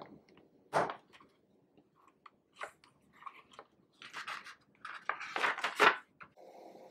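Paper pages of a small ring-bound binder being handled and turned: crisp rustles and crinkles in separate bursts, with a louder flurry of page turning about five to six seconds in.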